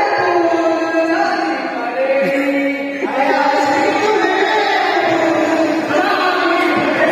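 Amplified male voices singing together into microphones, with long held, ornamented notes and an electronic keyboard accompanying.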